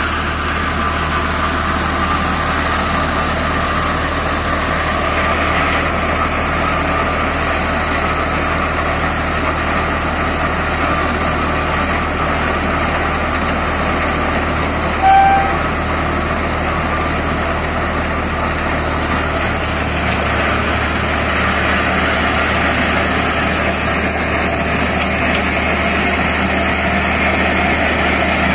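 Deutz D4006 tractor's air-cooled three-cylinder diesel running steadily under load, driving a rear-mounted flail mulcher that shreds brush and undergrowth. A brief high chirp about halfway through.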